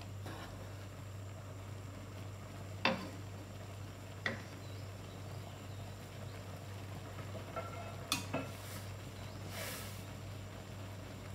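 Thick white cheese sauce simmering in a nonstick frying pan on the stove, with a few sharp pops and small blips from the sauce scattered through. A steady low hum runs underneath.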